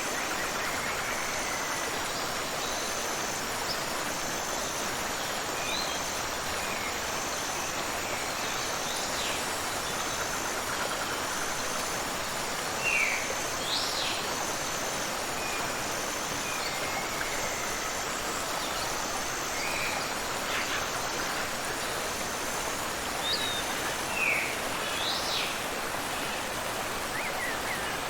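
Steady rushing of a waterfall and river, with a few short bird chirps over it, clustered about halfway through and again near the end.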